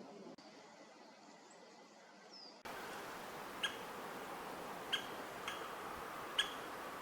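Great spotted woodpecker giving short, sharp single 'kik' calls, four of them about a second apart in the second half, over a steady hiss. Before that come a few faint, thin high bird calls, and the background hiss jumps up abruptly about two and a half seconds in.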